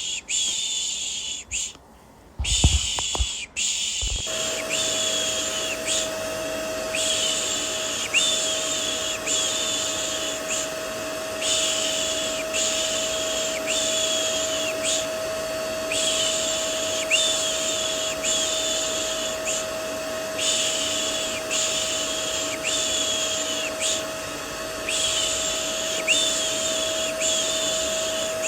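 Rhythmic "shh" hushing, about one shush a second, over the steady hum of a vacuum cleaner, used as white noise to soothe a baby. The vacuum's steady motor whine comes in about four seconds in, after a brief dip and a few low thumps.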